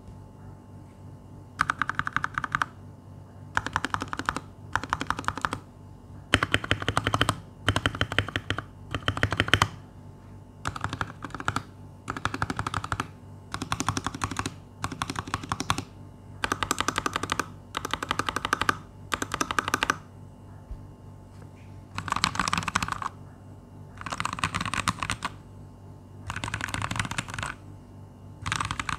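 Typing on an RK61 mechanical keyboard with lubed Huano red linear switches, bottomed out on every press. The typing comes in short bursts of rapid key clacks, each about a second long, with brief pauses between them, starting about a second and a half in.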